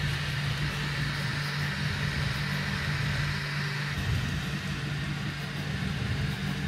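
3D printer running mid-print: a steady hum and whir from its fans and stepper motors.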